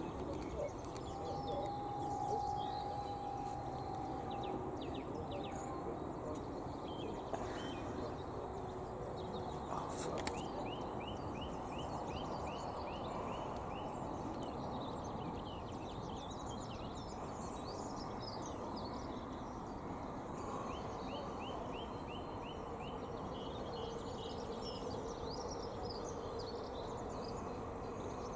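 Small birds chirping, with two quick trilled runs of notes, over a steady low background noise. A single sharp click comes about ten seconds in.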